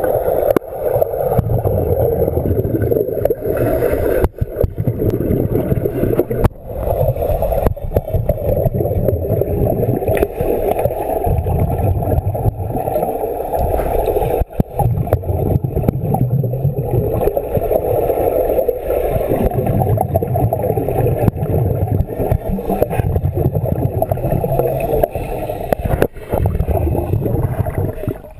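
Scuba divers' regulator bubbles gurgling underwater, heard through a submerged camera. The sound is muffled and continuous, with a low rumble of exhaled bubbles swelling every two to three seconds.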